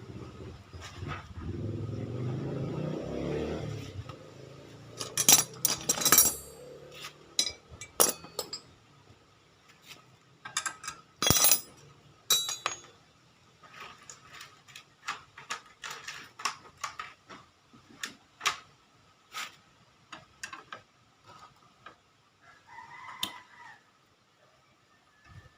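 Suzuki Satria single-cylinder two-stroke engine running for the first few seconds, a little louder just before it stops; the bike is being checked for a rough-running engine. Then come scattered sharp metallic clicks and clinks.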